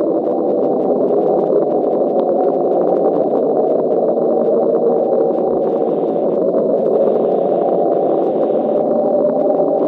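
Hydrophone recording of 'Julia', the unexplained underwater sound that NOAA recorded in 1999 and attributes to an iceberg running aground, played at normal speed: a steady, dense low hum of noise that does not change.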